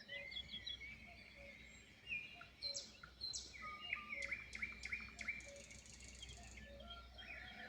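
Several wild songbirds singing and chirping together, with overlapping trills, whistles and quick chirps that are busiest in the middle. A faint low note repeats steadily about once a second underneath.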